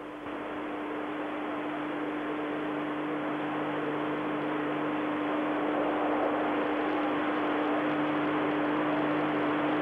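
Stadium crowd at a cricket Test, a steady hiss-like hubbub that grows a little louder over the first few seconds, with a steady low hum underneath from the old broadcast recording.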